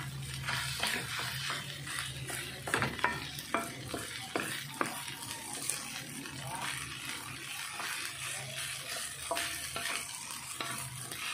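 Wooden spatula stirring and scraping rice around an aluminium wok, with irregular scrapes and light knocks against the pan over a steady frying sizzle.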